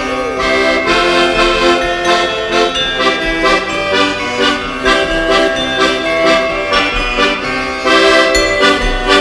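Folk ensemble playing traditional instrumental music live: sustained chords over a steady, regular beat.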